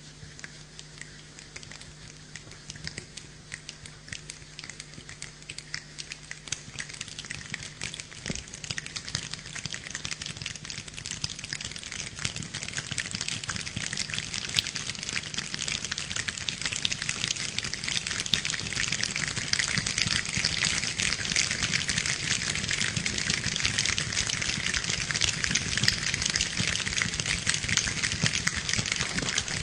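A dense, rain-like crackling patter that builds steadily louder, a sound effect made without instruments.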